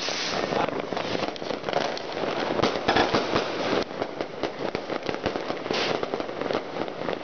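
Dense, unbroken barrage of many firecrackers and fireworks popping and crackling at once, loudest about three seconds in.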